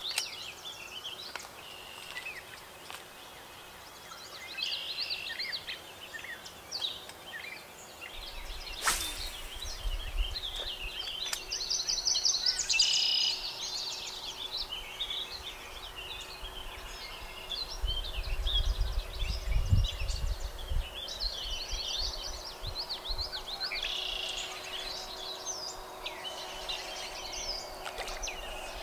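Several songbirds singing and chirping in overlapping phrases. There is one sharp click about nine seconds in, and a low rumble comes twice, around ten and twenty seconds in.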